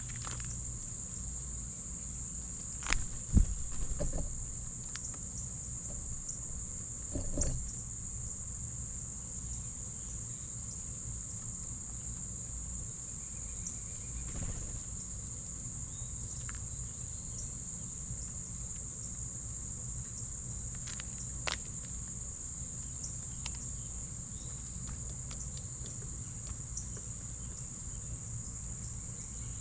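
A steady, high, continuous insect chorus, typical of crickets or similar singing insects, with a few sharp knocks: a cluster about three seconds in, one near seven and a half seconds, and one near twenty-one seconds.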